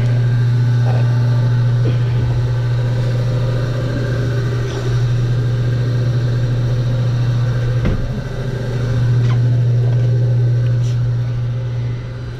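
Refrigeration unit of a store's walk-in drink cooler running with a loud, steady low hum, with a few light knocks from handling inside the cooler.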